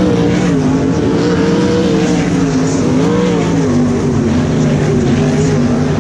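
A pack of LS1 V8 sprint cars racing past at close range, several engines rising and falling in pitch together as the drivers lift and get back on the throttle.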